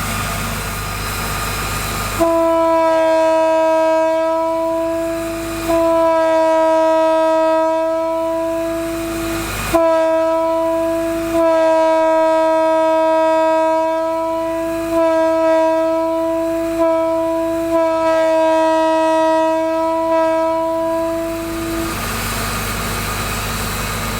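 Leslie S3L bronze two-piece three-chime locomotive air horn blown in a string of long blasts with brief breaks, about seven in all, the last stopping near the end. A steady low engine hum runs before and after the blasts.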